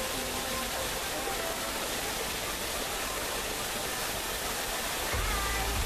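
Steady rushing hiss of background noise, with a low rumble that comes in near the end.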